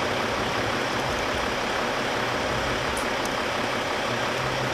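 Mercedes Sprinter's V6 diesel engine idling steadily, heard as an even rumble and hiss, with a couple of faint clicks about three seconds in.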